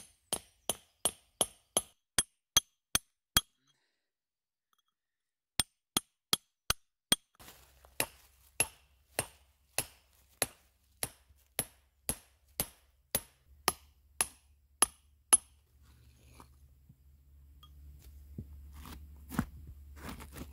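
Hammer striking a steel chisel set in a sandstone boulder: a regular run of sharp, ringing metallic clinks, about three a second, that breaks off for a couple of seconds and then resumes a little slower until about fifteen seconds in, splitting the stone. After that only faint low handling noise.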